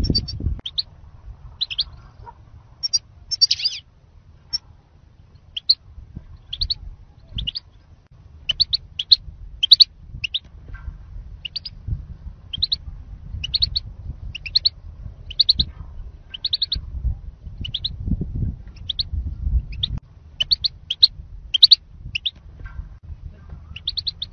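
European goldfinch calling: short, high chirps, often in quick pairs or triplets, repeated about once or twice a second, over a low rumble.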